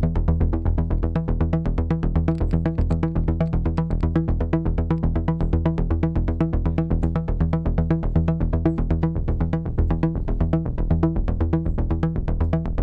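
Background music: an electronic track with a fast, steady beat and a heavy bass line.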